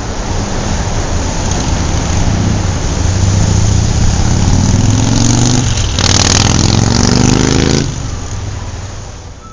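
Car engine running loud, revving up twice with its pitch climbing about halfway through and again just after, then fading away near the end.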